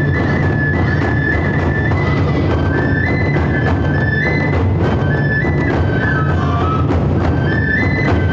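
Taiko drums beating a steady rhythm of strokes, with a Japanese bamboo transverse flute playing a high melody over them: one long held note, then short phrases stepping up and down.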